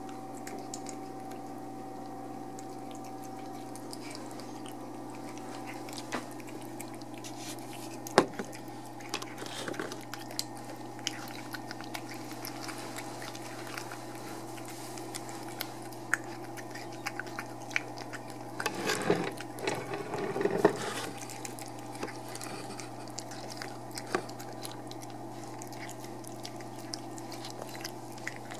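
A cat eating wet cat food: small wet chewing and smacking clicks scattered through, over a steady low hum. About two-thirds of the way through there is a brief louder patch of scuffling noise.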